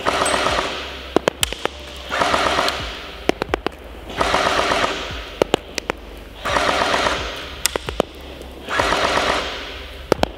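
SVU-AS bullpup airsoft electric gun (AEG), on its 8.4 V NiMH battery, firing full-auto in five short bursts of a little under a second each, its gearbox cycling in a fast rattle. Sharp single clicks sound between the bursts.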